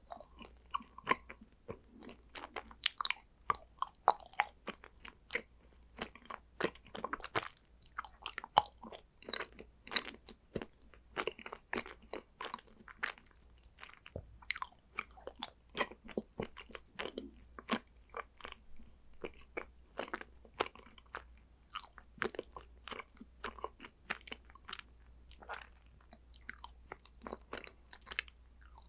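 A person chewing and crunching condensed-milk chocolate, with a constant run of irregular crisp crackles and bites.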